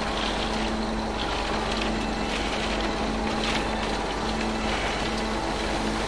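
Soft background music: sustained low notes over a steady hiss-like wash.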